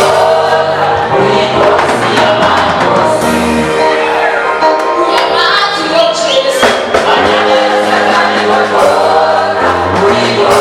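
Choir singing a gospel song in harmony over live instrumental accompaniment with a steady bass line.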